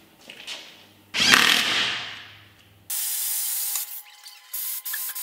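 Water hose spraying onto the rear axle in bursts of hiss. About a second in, a sudden loud burst fades away; from about three seconds in, steadier, higher hiss comes in separate stretches.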